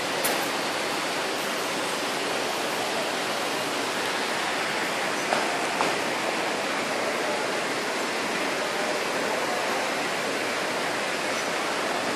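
Steady, even rushing noise, like running water or moving air, with a few brief clicks: one just after the start and two about five and six seconds in.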